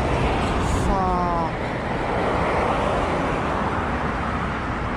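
Road traffic passing: a steady rush of tyre and engine noise that is strongest a couple of seconds in.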